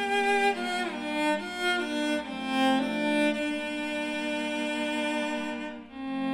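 Background music on bowed strings: a slow melody stepping from note to note, with one long held note in the middle before a brief dip and a new note near the end.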